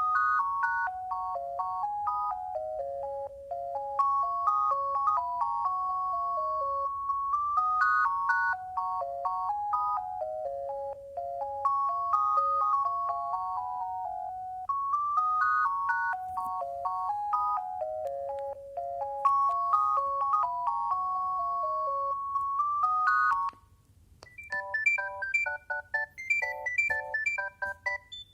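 Alcatel One Touch 320 mobile phone playing a built-in ringtone: a one-note-at-a-time beeping melody that plays through three times. It cuts off about 23 seconds in, and a faster, higher ringtone starts.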